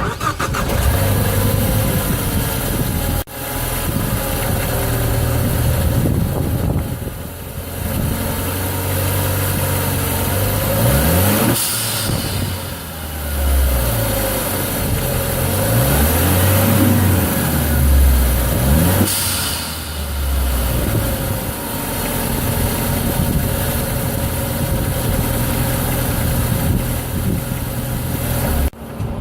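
Turbocharged car engine starting up and idling, then revved a few times. Twice, about twelve and nineteen seconds in, a short whoosh of air from the blow-off valve venting as the throttle closes shows that the newly fitted Breedt adapter works.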